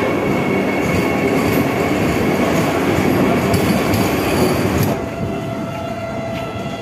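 Vande Bharat electric train set rolling along a station platform, a loud rumble of wheels and coaches with some wheel squeal. The noise falls away about five seconds in as the last coach passes.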